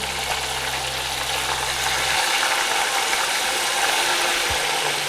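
Chicken pieces deep-frying in hot oil, a steady sizzling crackle. A low hum underneath stops about two seconds in.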